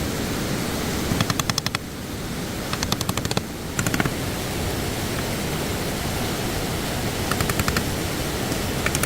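Stream water rushing steadily. Several short bursts of rapid clicking, each lasting about half a second, sound over it.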